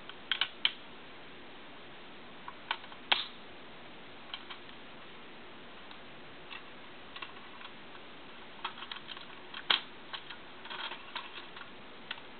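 Lego plastic parts of a home-built crossbow pistol clicking and rattling as the slide and mechanism are worked by hand. The clicks come irregularly, a few at a time, with the sharpest near the start, about three seconds in, and in a quick cluster around nine to ten seconds in.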